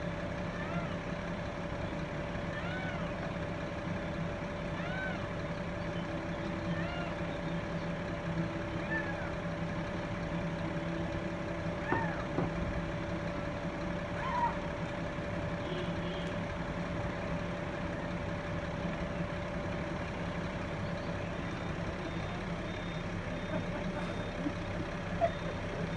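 Fire truck engine running steadily, a constant hum with a held tone. Short, high, arching chirps sound over it now and then.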